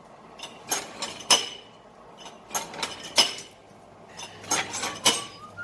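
Hand hammer striking hot iron on an anvil with a short metallic ring, in three pairs of blows about half a second apart, as the bar is forged into a wraparound.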